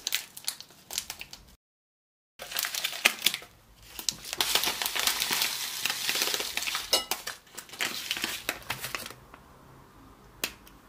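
Plastic bag of desiccated coconut flakes crinkling as it is opened and then tipped and shaken out over a bowl. There is a brief dead silence about a second and a half in.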